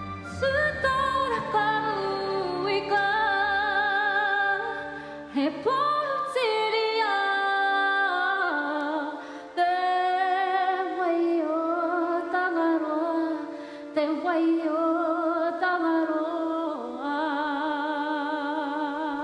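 A woman singing long, held notes with vibrato, without words, largely unaccompanied after a low accompaniment drops away about five seconds in.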